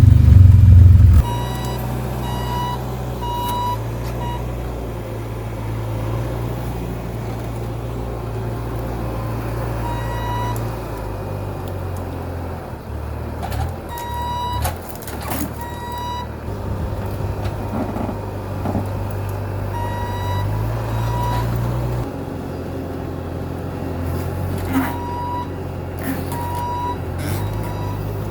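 A vehicle engine running with a steady low hum, louder for the first second or so, while an electronic warning beeper sounds in short runs of a few beeps every few seconds.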